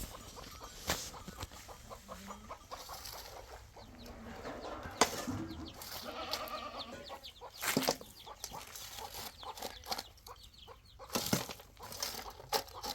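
Chickens clucking, with scattered sharp knocks and clatter.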